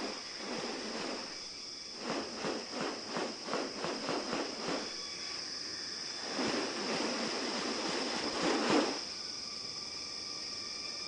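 Rainforest ambience: a steady high insect drone, with a run of quick rhythmic pulses, about three a second, from about two to five seconds in. Then a longer rushing sound swells and cuts off near nine seconds.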